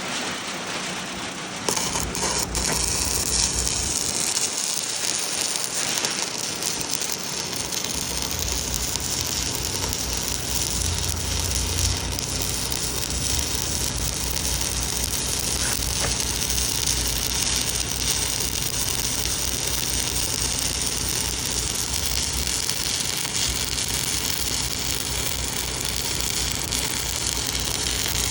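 Stick welding arc crackling and hissing steadily, starting about two seconds in, with a low hum underneath.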